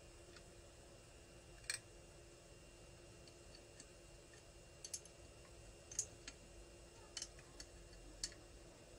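Faint, scattered metallic clicks of a combination spanner working the cylinder head nuts down on a small engine, the loudest about two seconds in and a cluster of lighter ones in the second half.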